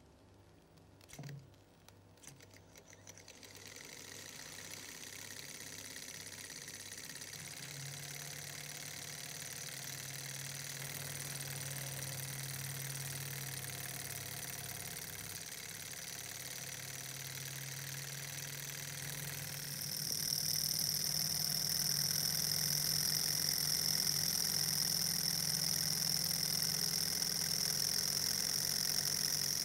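Small model Stirling hot-air engine (OKMO J07) with a brass flywheel, getting going after a couple of clicks about a second in and building to a steady mechanical whirr as it speeds up under the flame. From about twenty seconds in it is louder, with a high whine over the running noise.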